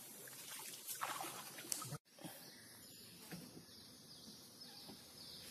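Quiet outdoor ambience on a mangrove river, with a few light knocks in the first two seconds and a brief dropout at about two seconds.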